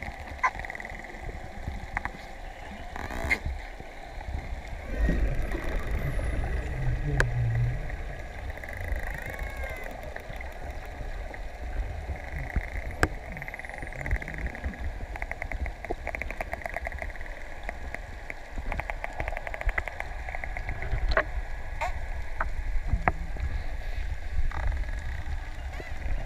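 Underwater recording among a pod of spinner dolphins: rapid trains of clicks, densest in the middle stretch, and a few faint high whistles over the steady wash of water, with a low rumble of water movement loudest about five to eight seconds in.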